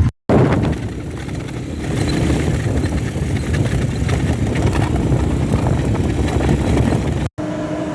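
ATV engine running under way, a steady low engine sound lasting about seven seconds and cut off abruptly near the end.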